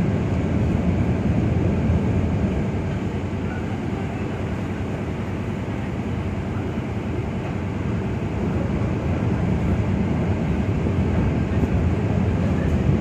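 Ferry's engines running with a steady low rumble, heard on board as the ship manoeuvres to berth.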